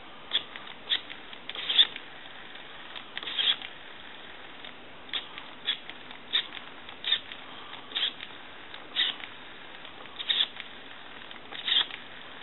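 Rotary telephone dial on a Takara French-style desk phone being wound by finger and let run back, again and again, giving a series of light clicks about one to two a second. The dial has just been realigned, cleaned, oiled and had its points adjusted, and its return is now smooth.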